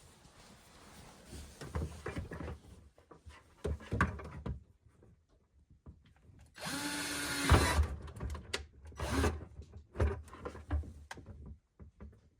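Hands working a hose and fittings in a plastic bucket: scattered knocks, clicks and rubbing. About seven seconds in there is a brief, louder whirring buzz lasting under a second.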